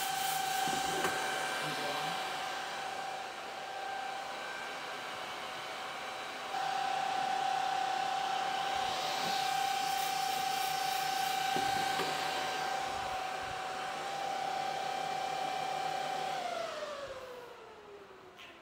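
Kaleido M6 coffee roaster's fan blowing air through the cooling tray of freshly roasted beans, a steady rush with a whine. About sixteen seconds in it is switched off and spins down, the whine falling in pitch as it fades.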